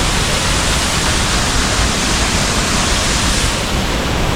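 Waterfall: the steady, loud rush of falling water, with no distinct events. The highest part of the hiss eases slightly about three and a half seconds in.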